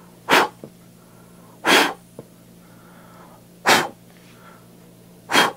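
Four sharp puffs of breath blown at the lit flame of a Zippo Flex Neck butane utility lighter, one every 1.5 to 2 seconds, testing how well the flame stands up to wind.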